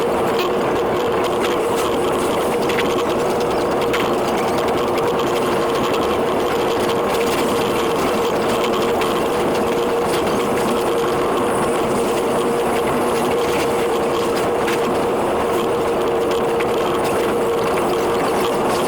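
Running noise of a JR East E721 series electric train, sped up ten times into a steady, dense rushing hiss with a constant hum and a rapid patter of fine ticks from the rails.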